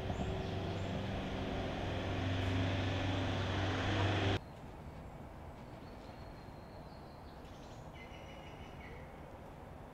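A steady engine or motor drone with a low hum, swelling slightly, then cut off abruptly about four and a half seconds in. Faint outdoor background follows, with a few short high chirps near the end.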